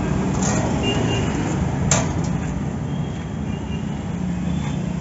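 A steady low mechanical hum, with one sharp click about two seconds in.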